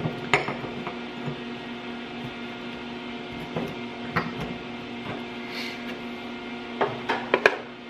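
Steady electrical hum from a switched-on MIG welder, with scattered light metal clinks as two short pieces of square metal tubing are handled and fitted together. A quick cluster of sharp clacks comes near the end as the pieces are set in the welder's ground clamp.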